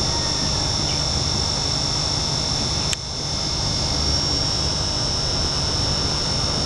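Fish-tank air pumps running: a steady hum with a high, even whine on top. A sharp click about three seconds in, after which the sound dips briefly and recovers.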